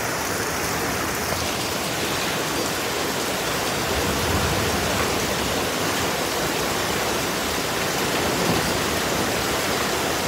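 A heavy rain shower mixed with hail, falling as a steady, even hiss.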